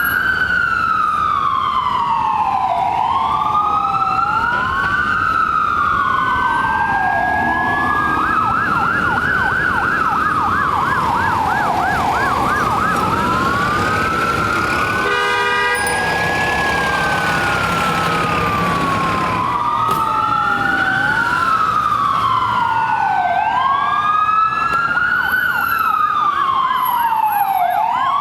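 Ambulance siren sounding a wail that sweeps slowly up and down in pitch. It switches twice to a fast warbling yelp, once about a third of the way in and again near the end. A brief steady-pitched blast cuts in about halfway through.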